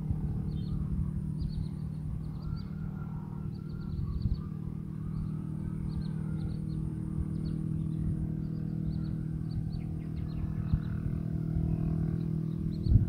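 A small engine running at a steady idle, with a low rumble underneath and short bird chirps scattered throughout.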